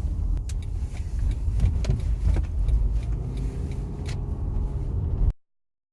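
Low, uneven car rumble with a few scattered clicks and knocks, stopping abruptly about five seconds in.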